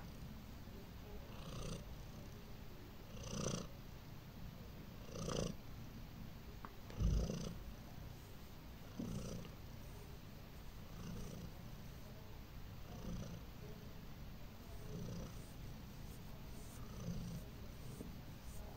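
Tabby-and-white domestic cat purring as it is stroked and drifts toward sleep. The purr swells with each breath about every two seconds, and a loud low thump comes about seven seconds in.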